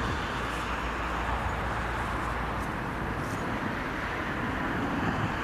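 Steady, even hiss of distant road traffic with a low rumble beneath.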